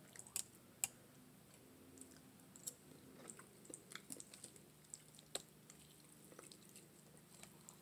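Faint eating sounds: soft chewing with scattered light clicks of a fork against a stainless steel pan as meat is picked off curried neck bones.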